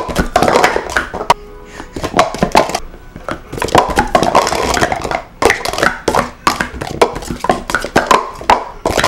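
Plastic sport-stacking cups clicking and clattering rapidly as a 3-6-3 stack is built up into pyramids and collapsed back down, in quick runs with brief pauses between them.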